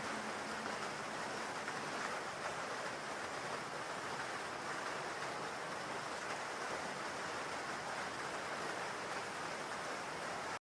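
Steady rain hiss from a rain ambience track, even and unbroken, cutting off abruptly near the end.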